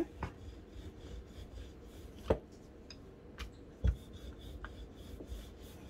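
Wooden rolling pin rolling dough out thin on a wooden cutting board: a low rubbing rumble broken by a few sharp wooden knocks, the loudest about two and four seconds in.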